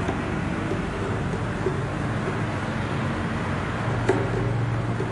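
Steady background noise with a low hum, and one short click about four seconds in.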